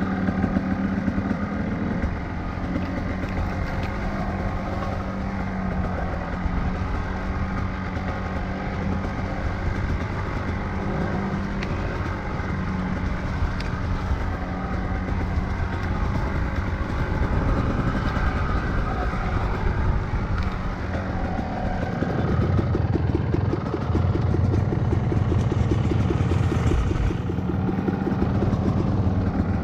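Dirt bike engine running on a trail ride, its note rising and falling with the throttle. It gets louder and rougher about three-quarters of the way through.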